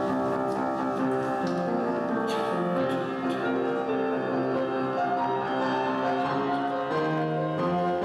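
Instrumental music on a keyboard instrument: held chords moving from one to the next every half second to a second.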